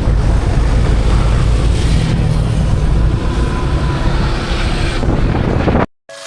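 A moving vehicle running, with heavy wind noise on the microphone. It cuts off abruptly near the end, and electronic music starts with a falling sweep.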